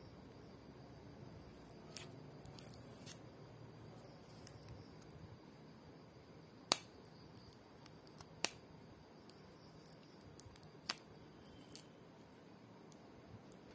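Scattered sharp clicks and taps from handling a plastic earbud charging case, its lid snapping open and shut, the loudest click about seven seconds in.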